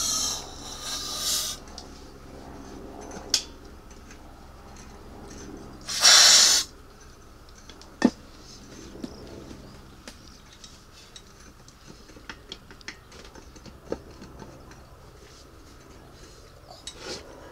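Aerosol parts cleaner sprayed through a straw nozzle into an engine: a hissing spray burst at the start lasting about a second and a half, and a shorter, louder burst about six seconds in. Several sharp clicks and light knocks follow as the can and parts are handled.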